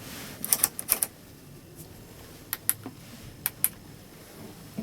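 A series of sharp clicks and taps: a quick cluster in the first second, then two pairs of clicks in the middle, over a low, steady background hum.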